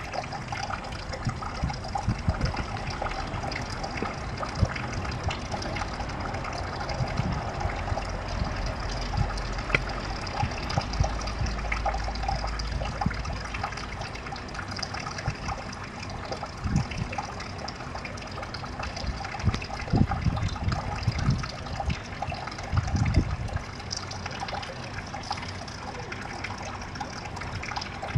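Water trickling and splashing steadily into a garden pond, with a few short low bumps in the second half.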